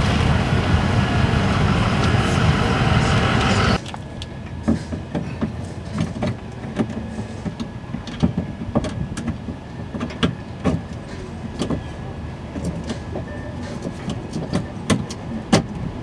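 A loud steady rushing noise for about four seconds that cuts off suddenly, followed by scattered light clicks and knocks of plastic parts being handled and fitted into the bumper as the brake light goes in.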